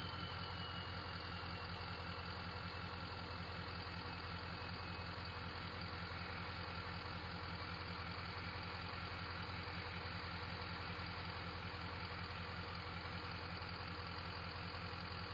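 Ford 6.0 Power Stroke V8 turbodiesel idling with a steady clatter after a rev; the turbo's whistle falls in pitch as it spools down over about the first second, then a faint steady whistle stays over the idle.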